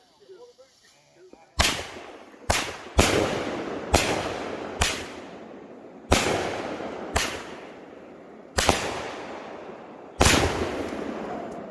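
Six-shot consumer firework cake going off. About nine sharp bangs come unevenly over roughly nine seconds, starting about a second and a half in, each trailing off in a rolling rumble. The shells break very low.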